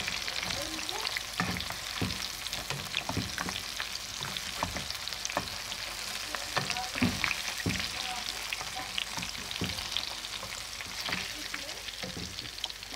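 Chicken pieces deep-frying in hot oil, sizzling steadily, with scattered clicks and scrapes as a slotted metal spoon and a wooden spatula stir the pieces and lift them out. The chicken is fully fried and being taken out of the oil.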